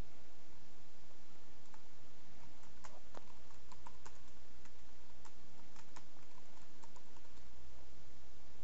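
Computer keyboard typing: scattered, irregular faint keystrokes over a steady low hiss.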